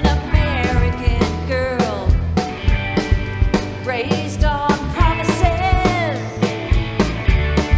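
Live band playing: a woman sings lead over guitar and drums, with a steady drum beat.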